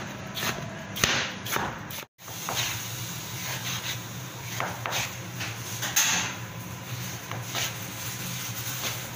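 Chef's knife slicing a tomato on a plastic cutting board: irregular knocks and taps of the blade meeting the board, with a brief drop-out about two seconds in.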